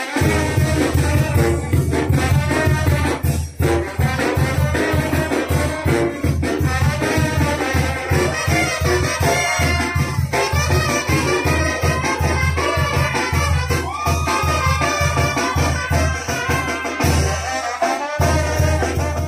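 A brass band playing a lively dance tune, with tuba and drum keeping a steady beat under the horns.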